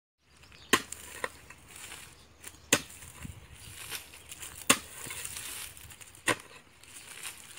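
A long-handled digging tool striking hard ground as a hole is dug, four heavy strokes about two seconds apart with lighter knocks and scrapes between them.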